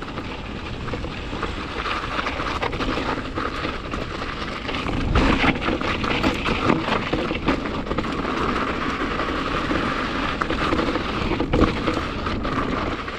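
Mountain bike descending a rough rocky trail: tyres rolling and crunching over rock, with frequent knocks and rattles from the bike as it hits bumps, over a constant rush of wind noise on the camera. It gets louder and rougher about five seconds in.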